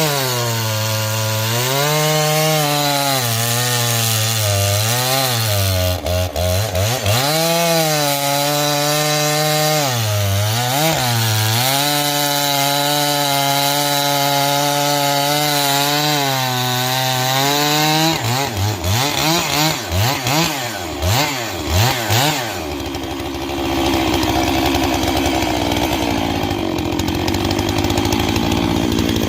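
Two-stroke chainsaw running at high speed while cutting wood, its engine pitch dipping again and again as it bogs under load. From about 18 s in it gives a run of quick revs, then settles into a rougher, steadier noise for the last several seconds.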